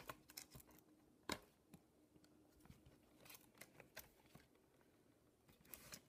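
Faint clicks and light taps as the metal L-shaped bracket of a MacBook is handled and fitted back into the battery bay. One sharper click comes about a second in, and a few more come near the end.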